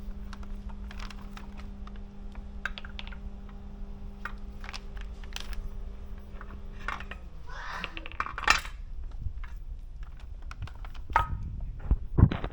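Scattered light metallic clinks and knocks of tools and parts being handled, with a steady hum that stops about seven seconds in.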